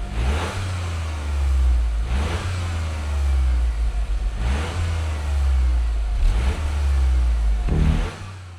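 Toyota GR Yaris Gen II's turbocharged three-cylinder engine and exhaust being revved in blips about every two seconds, the revs falling away after each one.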